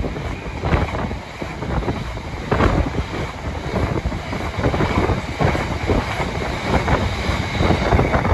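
Empty open box wagons of a freight train rolling past close below, their wheels clattering and knocking irregularly over the rail joints over a steady rumble. The train's tail passes near the end and the clatter starts to die away.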